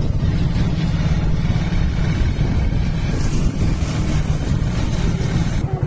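Motorcycle running along a street with the rider and passenger aboard, its engine mixed with a heavy, steady rumble of wind on the microphone.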